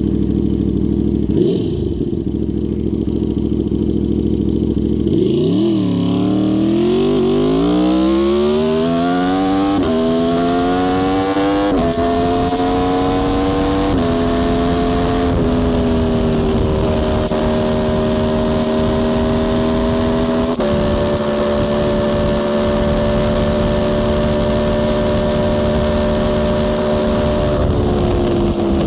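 Aprilia Tuono V4 R's V4 engine accelerating hard. The note climbs steadily, breaks briefly at several quick upshifts, then holds a steady high pitch at speed and starts to fall near the end.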